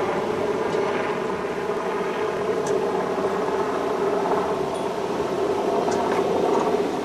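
Bernese Oberland Railway ABeh 4/4 electric railcar standing at the platform, its on-board equipment giving a steady hum with a held tone. A few faint clicks sound over it, one about six seconds in.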